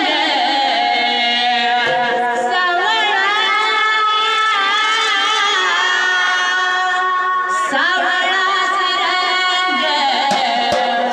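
A boy singing a Marathi devotional song (bhajan) in long held notes that waver and bend in ornamented turns.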